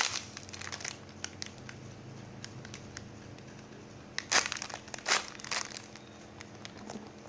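Crinkling and crackling as a homemade squishy is squeezed and handled, with a few sharper crackles about four to six seconds in.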